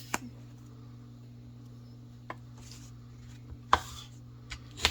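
Folding knife blade cutting down through material on a work surface: about five sharp, short cutting strokes, the loudest about three-quarters of the way through.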